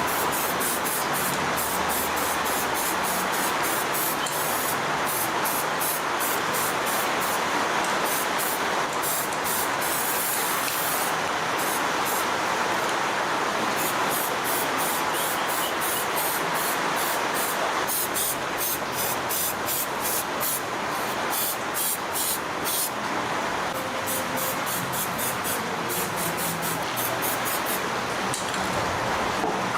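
Steady hissing spray that runs without a break.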